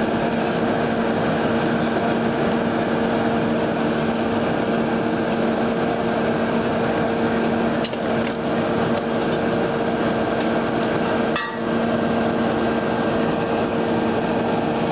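Hurst hydraulic rescue tool's power unit running with a steady hum while the tool works on a car's door, with a few sharp knocks about halfway through and again about three-quarters of the way through.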